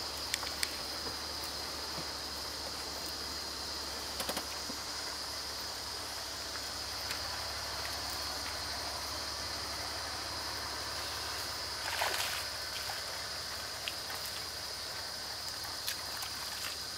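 Steady high-pitched drone of insects, with a low hum underneath and a few faint clicks; a brief louder rustle comes about twelve seconds in.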